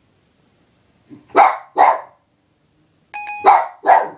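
Dog barking: two pairs of short, sharp barks about two seconds apart, with a brief electronic beep just before the second pair.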